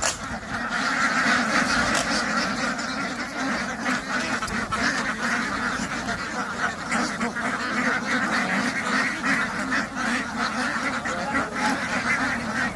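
Ducks quacking continuously, many calls overlapping into a steady din.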